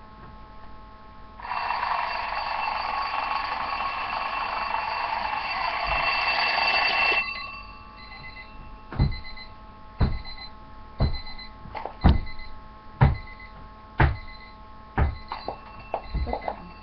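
Twin-bell mechanical alarm clock ringing loudly for about six seconds, its hammer rattling rapidly between the bells, then cutting off suddenly. After that come sharp clicks about once a second.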